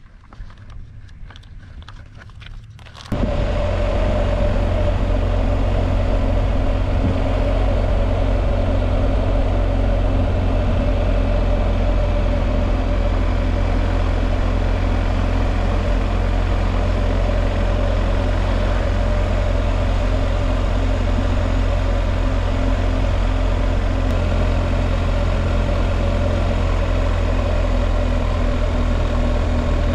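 BMW R1250GS Adventure's boxer-twin engine running at a steady cruise with wind noise, heard from the rider's position. It cuts in abruptly about three seconds in after faint sound, and the engine note shifts slightly near the end.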